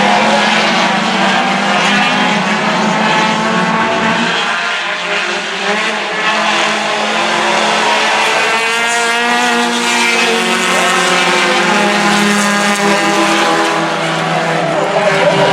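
Several four-cylinder race cars running together on a short oval, their engines revving up and falling off as they go through the turns, many engine notes overlapping.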